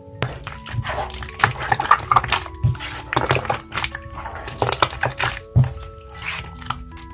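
Slime being squished and stretched by hand, giving irregular wet squelches and crackly pops, over soft background music. The slime is a chocolate-syrup slime mixed with chocolate clay and coconut soothing gel.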